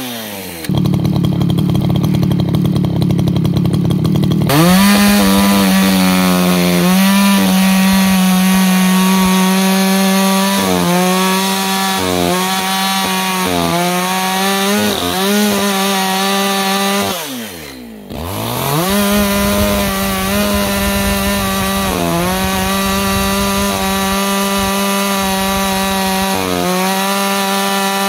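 Echo CS-620P two-stroke chainsaw cutting firewood: it runs at high revs with the pitch dipping again and again under load. About 17 seconds in it drops off throttle briefly, then revs back up and keeps cutting.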